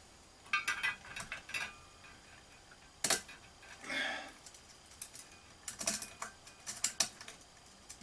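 Scattered small clicks and taps of hands fitting screws into a ceiling fan-light fixture's mounting canopy, with one loud sharp click about three seconds in and a short exhale about a second later.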